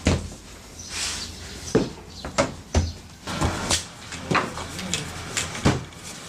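Hands slapping and pressing naan dough on a wooden board: a run of about ten soft slaps and thuds at an uneven pace.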